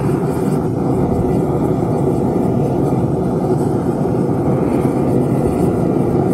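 Gas-fired forge burner running with a steady, unbroken rush of flame while a knife blade heats inside it for hardening.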